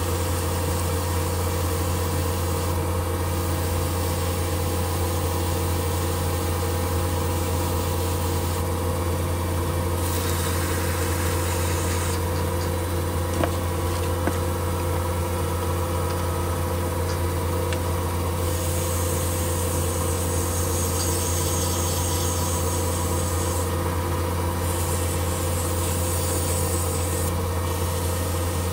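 Small benchtop lathe running steadily with a constant low hum while a spinning tungsten button is sanded with sandpaper held against it. A hiss of paper rubbing on the metal comes and goes over the steady motor note.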